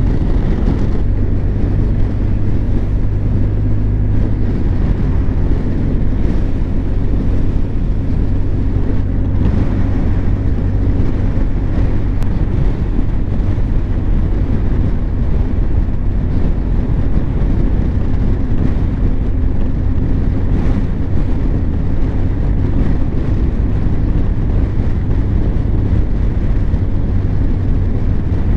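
Honda Crosstourer's V4 engine running steadily at cruising speed, with wind rushing over the microphone. The engine's low hum shifts slightly in pitch a second and about four seconds in.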